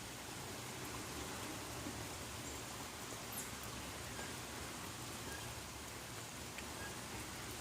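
Steady rain falling, an even hiss with a few faint scattered drip ticks.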